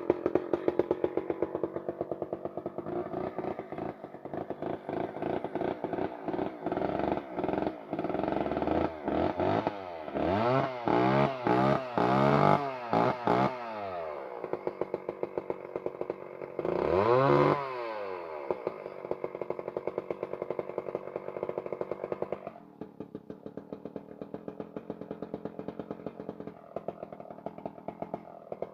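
Freshly rebuilt McCulloch Mac 10-10A two-stroke chainsaw running with a fast, rough idle. It is revved up and down several times from about ten to fourteen seconds in and once more a few seconds later, then settles to a quieter, lower idle.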